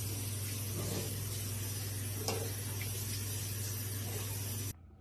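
Steady hiss over a low hum that cuts off suddenly near the end, with one brief faint sound about two seconds in.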